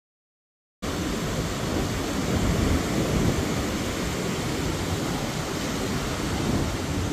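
Ocean surf washing onto a beach: a steady rush of waves that cuts in suddenly just under a second in, after dead silence.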